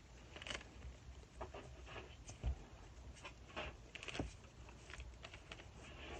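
Faint, irregular soft rustles and small taps of fingers smoothing damp air-dry clay, with a few light thumps.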